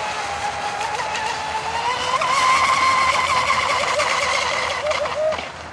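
Radio-controlled catamaran speedboat running flat out across the water: a high motor whine over hissing spray, its pitch climbing about two seconds in and holding, then wavering and cutting off sharply near the end.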